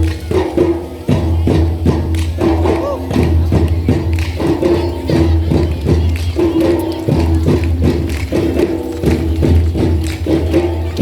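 School drum band playing a fast, steady rhythm of drum strokes, several a second, with a deep steady hum and held pitched notes underneath.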